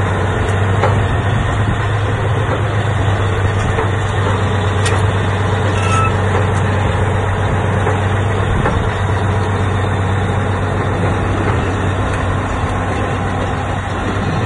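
Caterpillar D10N bulldozer's V12 diesel engine running steadily at a low, even pitch.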